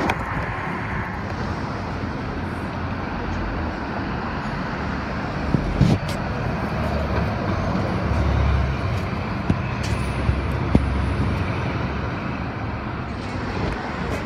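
Street traffic with a bus passing close by: a steady traffic hiss and the bus engine's low rumble, which swells in the middle. A few sharp knocks stand out.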